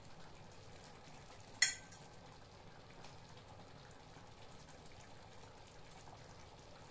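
Faint bubbling of a pot of food still simmering on the stove, with a single sharp clink about one and a half seconds in as a serving spoon knocks against the pot.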